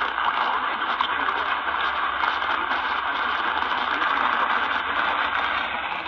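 Steady AM radio static and hiss from a portable Eton radio tuned to 950 kHz AM, its sound narrowed to the radio's band with no clear programme audio.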